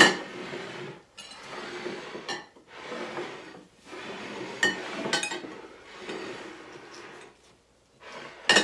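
Bowls of food being slid across a tabletop and set down. The scraping is broken by several sharp clinks as the bowls knock the table or each other.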